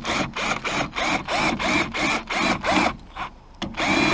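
Electric drill drilling out the pop rivets that hold the soft-top fabric to the roof frame. The trigger is pulsed in short bursts about four a second, the motor spinning up and down each time, then after a short pause it is held on steadily near the end.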